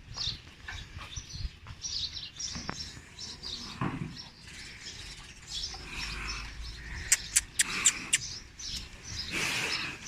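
Small birds chirping repeatedly. A little after seven seconds in comes a quick run of about six sharp clicks or taps, the loudest sounds here, and near the end a short burst of hiss.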